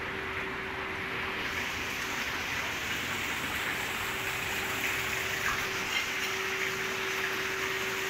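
Pool water churning and splashing from underwater jets, a steady rushing, with a steady hum running under it.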